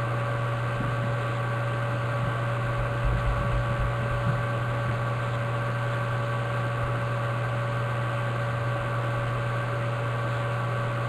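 Steady electrical hum and hiss with a few faint whine tones above it, unchanging throughout.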